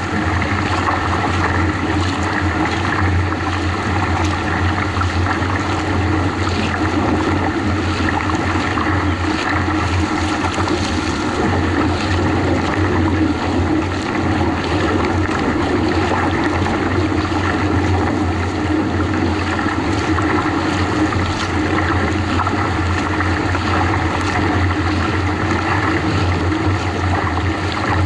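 Water rushing and splashing along the hull of an NK Nitro 600 kayak as it rides a motorboat's wake, over the steady low hum of the motorboat's engine running just ahead.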